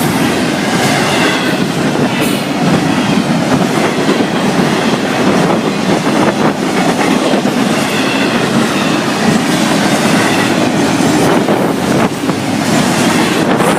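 Florida East Coast Railway freight train's container cars rolling past: a loud, steady rumble of steel wheels on rail, with clickety-clack over the rail joints and thin wheel squeals now and then.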